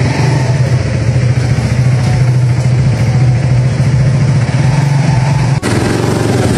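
Italjet Dragster 200 scooter's single-cylinder engine idling steadily with a rough note. About five and a half seconds in the sound cuts abruptly to another Dragster 200 running through an Akrapovic exhaust.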